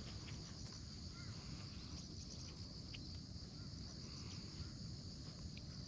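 Faint insects chirring steadily in a high band, with short trains of rapid pulses, over a low rumble of outdoor noise.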